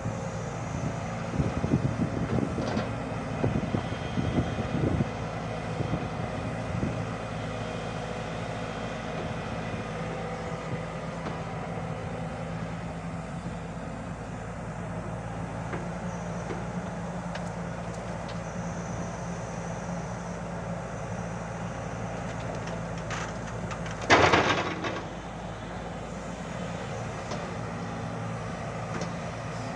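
Hyundai 140 crawler excavator's diesel engine running steadily as the machine swings and digs soil to load a tipper truck. Irregular clunks and thuds in the first few seconds, and a loud rasping burst about a second long near the end.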